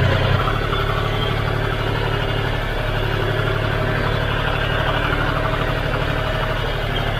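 John Deere 5039D Power Pro tractor's three-cylinder diesel engine running at a steady speed while the tractor drives along a dirt farm track, heard from the driver's seat.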